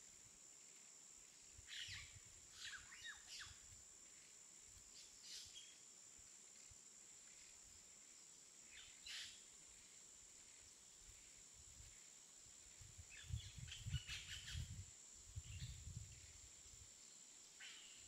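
Near silence: faint room tone with a steady high whine, a few faint short chirps scattered through, and soft low bumps in the last third.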